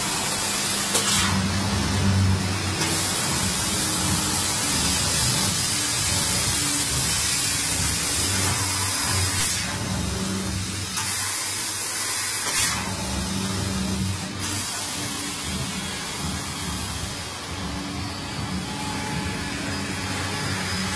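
Fiber laser tube-cutting machine running, with a loud hiss of gas from the cutting head that stops and restarts several times between cuts, over a low steady machine hum.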